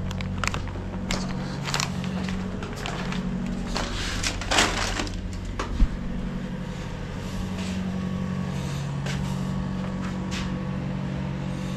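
A takeout bag rustles briefly about four and a half seconds in, with a few light clicks and knocks around it, over a steady low hum.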